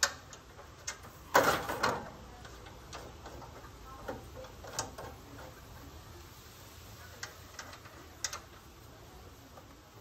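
Metal clicks and a short rattling clatter about a second and a half in, from the telescopic handle of a Bartels Goral electric stair-climbing hand truck being adjusted higher, followed by a few lighter ticks.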